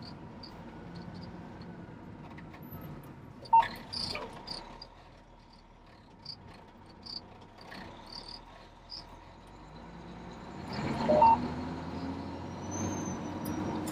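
Fire engine's engine running steadily at low revs, getting louder and rising in pitch about eleven seconds in as it pulls away. Short high chirps come every half second or so over it, with a sharp click about three and a half seconds in.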